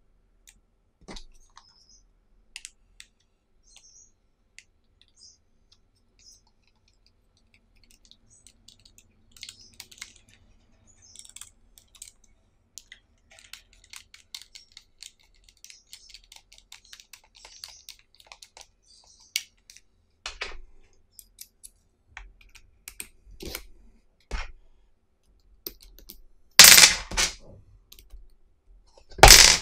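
Small plastic-and-metal clicks as a magnetic screwdriver handle and bits are fitted together and a small screw is driven, with a stretch of rapid clicking about halfway through. Near the end come two loud short clattering knocks as a corded drill is handled.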